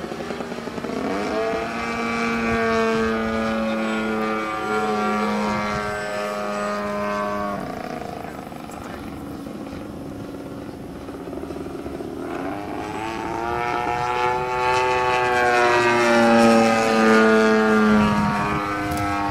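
Radio-controlled model airplane's small engine and propeller droning overhead, its pitch shifting as it passes. It fades about eight seconds in, then comes back louder near the end.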